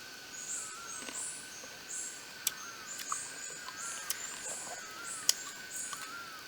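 Rainforest ambience: an animal's high chirps repeating about twice a second over a steady high insect-like drone, with a few sharp clicks.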